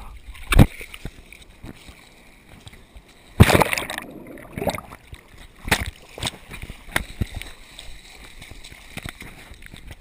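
Muffled water sloshing and splashing around a GoPro in its waterproof housing as it tumbles in shorebreak waves. Sharp knocks sound on the case, the loudest about half a second in and about three and a half seconds in, with smaller ones after.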